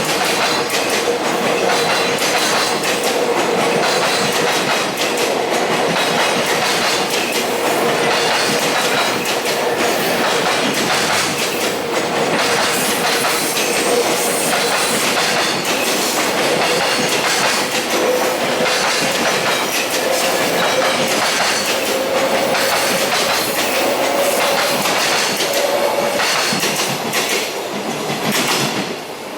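Container freight train passing close by, its wheels clattering over the rail joints, with a steady high whine running through most of it. The sound drops away near the end as the train passes.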